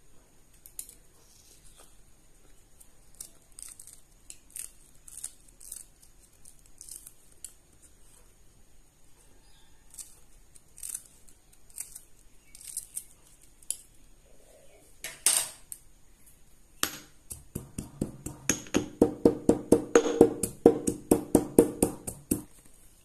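Pestle pounding garlic cloves and green chillies in a green stone mortar, knocking stone on stone: scattered, light knocks at first, with one louder strike, then in the last few seconds a fast, even pounding of about five strokes a second, louder, to crush them coarsely.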